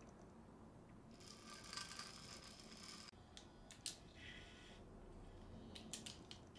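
DJI RS3 gimbal powering on and automatically unlocking its axes: a faint whir of its motors for about two seconds, then a sharp click and a few soft clicks.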